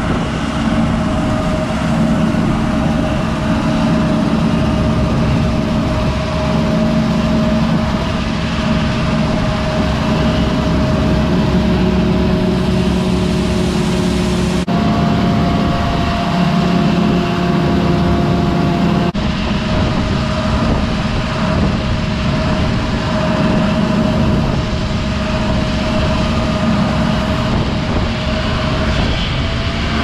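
A John Deere 9670 STS combine harvesting soybeans alongside a tractor and grain cart, unloading into the cart on the go: a loud, steady machinery drone with a constant whine above it. The pitch of the drone and whine shifts abruptly twice around the middle.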